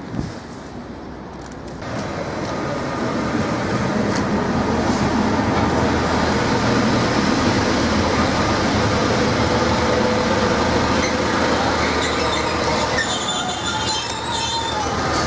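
Diesel multiple unit pulling into the station: engine and wheel noise build up about two seconds in and stay loud as the train runs along the platform, with a high squeal near the end as it slows to a stop.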